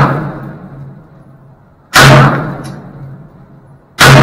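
AR pistol with a 10.5-inch Seekins Precision upper firing single shots, one about two seconds in and another near the end, each ringing out for about a second. It opens on the fading echo of a shot fired just before.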